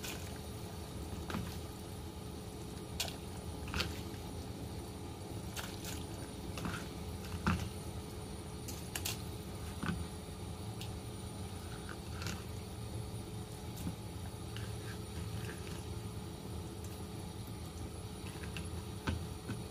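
Pot of soup boiling on the stove: a steady low rumble with scattered pops and ticks.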